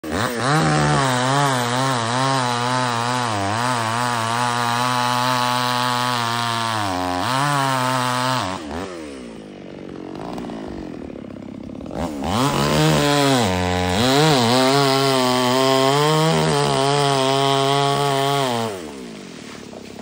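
Chainsaw engine at full throttle, cutting a tree trunk, its note wavering under load. About halfway it eases back to a quieter idle for a few seconds, then revs up and cuts again before dropping off near the end.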